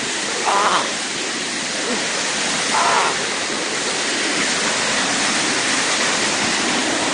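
Waterfall rushing steadily, close by. Two brief sounds stand out above it, about half a second and three seconds in.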